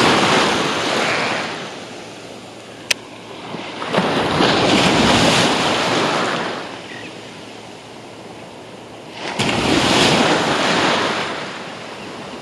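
Small surf waves breaking and washing up the sand, swelling and fading three times about every four to five seconds. A single sharp click about three seconds in.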